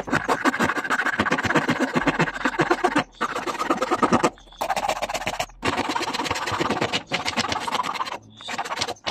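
Flat metal hand file rasping across wood in fast back-and-forth strokes, in several runs broken by short pauses.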